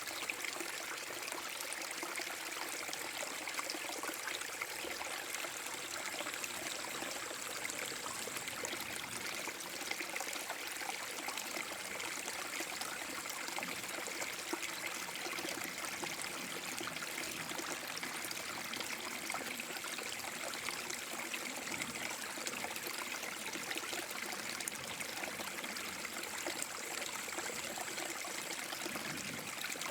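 Small forest-brook waterfall: water splashing and trickling over rocks in a steady, unbroken rush.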